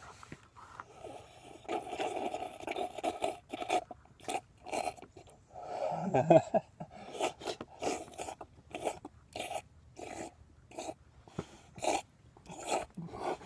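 A man lapping water from a stainless steel dog bowl with his tongue: quick, evenly repeated wet laps and slurps, with a louder slurp about six seconds in.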